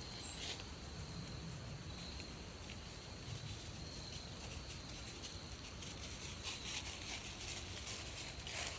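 Forest trail ambience on a walk: footsteps and light rustling on the trail, over a faint steady insect trill, with a single short bird chirp near the start.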